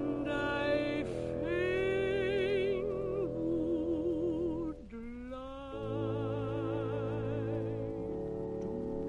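Operatic soprano singing long held notes with a wide vibrato over sustained accompaniment chords, in two phrases with a short break just before halfway. The voice drops out near the end, leaving the accompaniment chord held.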